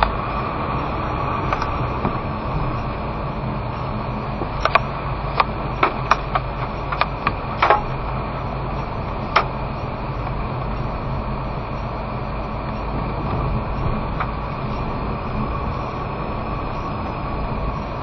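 Car driving downhill on a narrow mountain road, heard from inside the cabin: steady engine and tyre noise. A quick run of sharp clicks comes about five to eight seconds in, with one more about nine seconds in.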